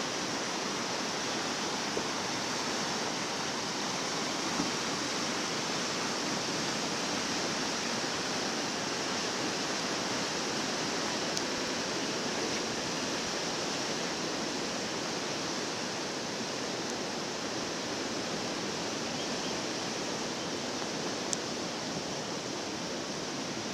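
Steady rush of fast-flowing whitewater.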